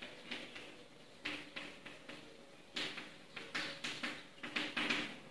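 Chalk writing on a blackboard: a series of short, irregular taps and scrapes as the chalk strikes and drags across the board.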